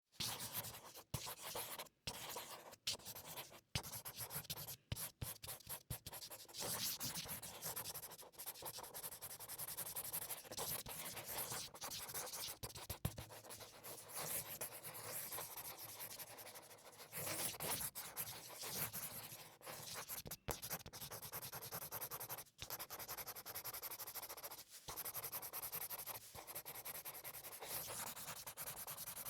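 Felt-tip marker drawing on paper: a dry squeaky-scratchy hiss of the tip dragging across the sheet, in short strokes with quick lifts for the first few seconds, then in longer, almost unbroken strokes with only brief pauses.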